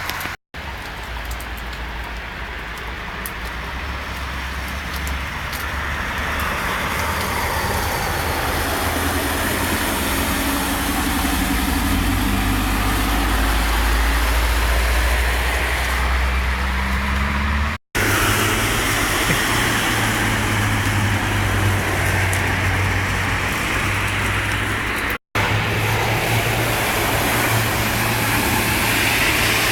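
Heavy downpour hissing, with a vehicle engine running low and steady underneath. The sound drops out for a moment three times.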